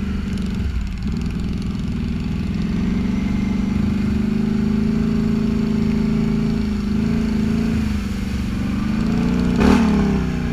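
Can-Am Outlander 800 XMR's V-twin engine, fitted with a Big Gun EVO U exhaust, running under way at a fairly steady pace with small changes in throttle. About nine and a half seconds in there is a brief rev that rises and falls.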